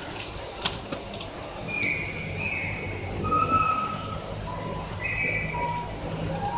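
Shelter dogs whining, a string of high, steady whines at different pitches, with a couple of sharp clicks about a second in.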